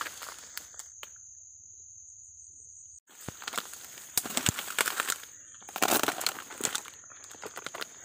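Dry reeds and grass rustling and crackling as someone pushes through a dense marsh thicket. The crackling is busiest in the second half and loudest about six seconds in, after a quieter stretch near the start.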